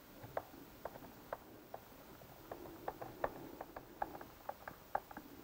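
Faint, irregular clicking, a few clicks a second, of a ratcheting T25 driver turning in the bolts that hold the drive unit on an RS800 CVT transaxle.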